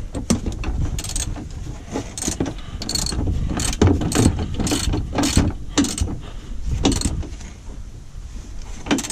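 Hand ratchet with a 19 mm socket clicking in short, irregular strokes as it snugs down a seat-belt harness mounting bolt and lock nut; the clicks thin out near the end.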